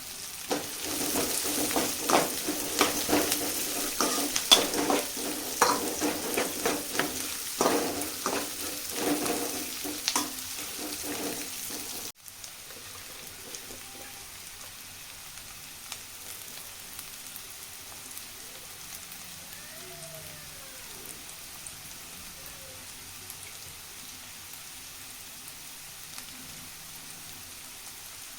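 Curry leaves crackling and spluttering in hot oil while being stirred, with many sharp pops over a loud sizzle. About twelve seconds in, it cuts off abruptly to a quieter, steady frying sizzle.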